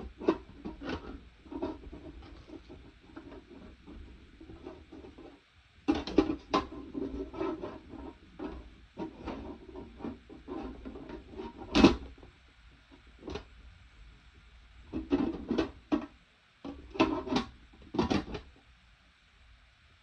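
An Equate warm-mist humidifier being handled and unpacked: irregular rubbing and scraping with scattered clicks and knocks, the sharpest knock about twelve seconds in.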